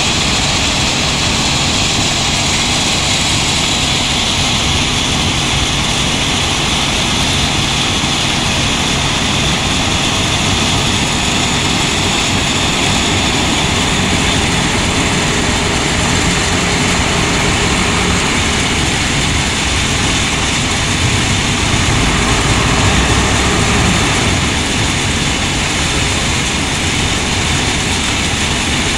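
A wheel loader's diesel engine runs steadily amid the drone of heavy machinery. It grows louder for a few seconds about three-quarters of the way in, as the loader moves up to the dump truck and lifts its bucket.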